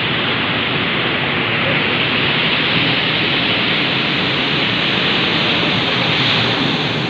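Steady rushing noise of sea surf, an even hiss without breaks.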